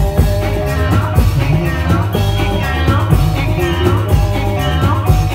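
Reog Indramayu dance music: a sung melody over a steady drum beat and melodic instruments.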